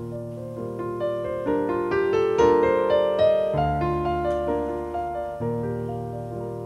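Background keyboard music: a piano melody over held bass notes that change every couple of seconds.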